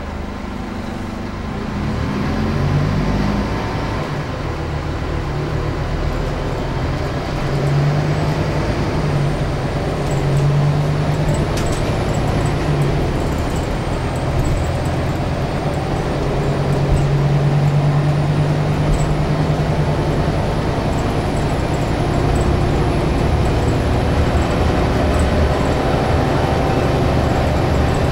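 Onboard sound of a Scania K360UA articulated bus under way, heard from inside the cabin: its diesel engine droning steadily under road and tyre noise. The engine note grows louder and eases off several times.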